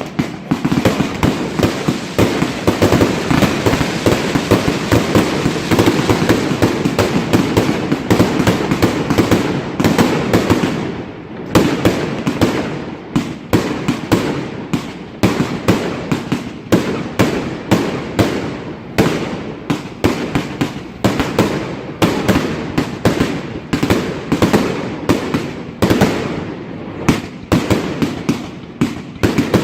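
Fireworks being set off: a dense, rapid crackling for about ten seconds, then a steady run of separate sharp bangs, about two a second.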